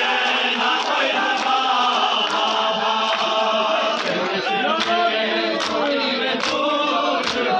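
Men chanting a noha, a mourning lament, together in chorus, with sharp slaps of hands striking bare chests in time (matam). The slaps come in a steady beat, a little more than one a second, and grow clearer in the second half.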